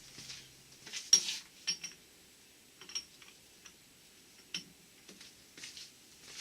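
Metal parts of a Borg-Warner T-10 four-speed transmission clinking as they are handled, a handful of scattered light clicks and taps, the loudest about a second in.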